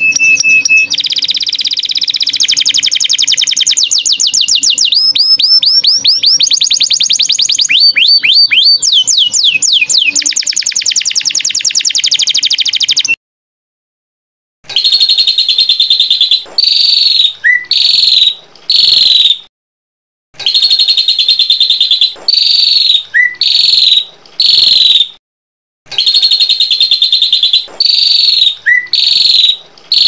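Small songbirds singing. For about thirteen seconds there is a continuous, rapid, varied song of high trills and quick glides. After a brief pause, a short phrase repeats four times with small gaps: a steady buzzy trill followed by a few rising-and-falling whistled notes.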